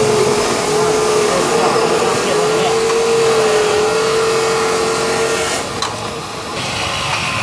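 A small motor running steadily with a wavering whine, over a hiss; the whine stops about five and a half seconds in.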